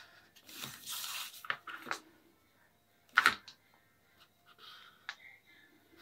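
Whiteboard marker strokes scratching across paper along the edge of a plastic ruler, with a few small clicks and one sharp, louder tap about three seconds in.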